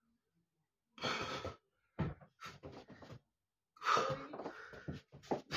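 A man lifting a loaded EZ curl bar, breathing out hard in effortful bursts, with a dull knock about two seconds in.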